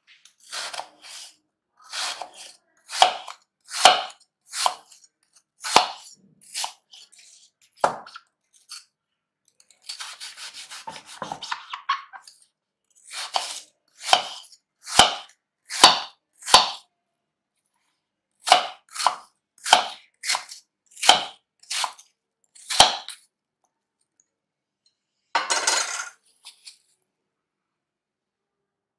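Kitchen knife dicing a peeled apple on a wooden chopping board: a couple of dozen sharp, irregular chops, about one a second, broken by a stretch of softer scraping partway through and a short rustle near the end.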